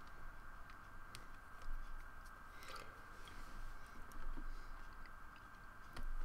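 Faint, scattered clicks of someone working a computer's drawing tablet, mouse and keys, over a steady high-pitched electrical hum.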